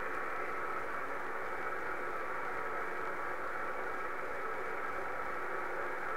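HF amateur radio receiver hissing with band noise and static on the PSK31 frequencies, a steady rush confined to the sideband audio passband, with a few faint steady digital-signal tones mixed in. The band is a little noisy.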